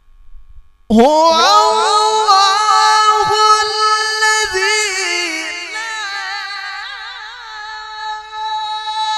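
A man reciting the Qur'an in the melodic tilawah style through a microphone: about a second in his voice swoops up into a loud, high held note, then stretches it in a long, ornamented, wavering melisma on a single breath.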